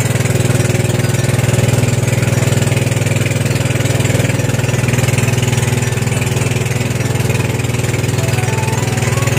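Outrigger boat's engine (bangka) running at a steady speed, giving a loud, even drone.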